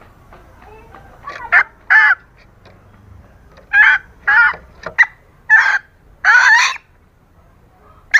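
Junglefowl hen calling as a lure call: about seven short, pitched clucking calls in two groups, the last one drawn out longer. A sharp click comes near the end.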